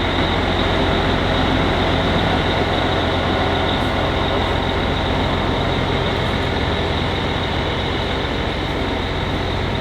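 Steady, loud low rumble of a running motor vehicle, an engine hum with road or wind noise over it, unchanging throughout.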